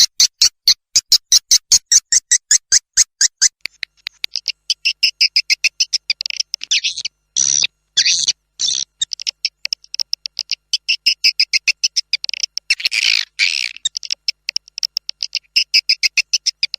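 Recorded swiftlet lure call (suara panggil walet) for drawing edible-nest swiftlets into a bird house: high, rapid chirps at about five a second, changing after a few seconds into denser twittering trills broken by short pauses.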